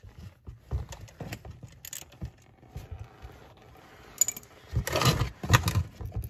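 Steel drain plug of an Audi Q5's aluminium oil pan being unscrewed by hand, with light metallic clicks and scrapes. About five seconds in come two louder rushing bursts as the engine oil starts running out of the drain hole.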